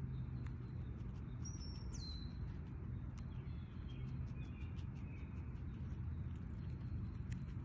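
Birds chirping over a steady low outdoor hum, with a short high twittering call about two seconds in. Faint crisp clicks run throughout as a cottontail rabbit nibbles carrot greens.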